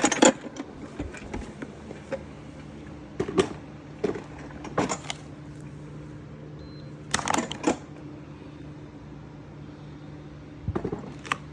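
Milwaukee Packout tilt storage organizer, a heavy plastic tool box, being handled and set on a scale: scattered knocks and clatters of hard plastic, a few seconds apart, over a steady low hum.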